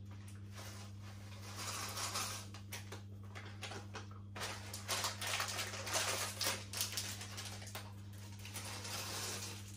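Dry cereal being poured: a grainy, pattering rattle of many small clicks that starts about a second and a half in and comes in spells until near the end. A steady low hum runs underneath.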